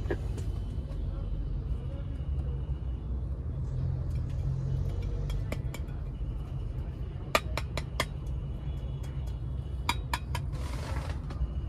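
Small metal air-freshener can being handled inside a car: a quick run of sharp clicks and clinks partway through and two more near the end, followed by a brief rustle. A steady low rumble of the car runs underneath.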